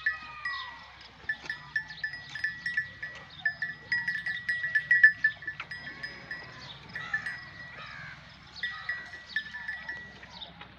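Farmyard livestock sounds: animal calls among many short, repeated high chirps over a thin, steady high tone.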